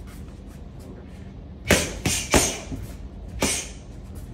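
Three short, sharp sounds from a boxer throwing punches: a quick pair just under two seconds in, then a third about a second later.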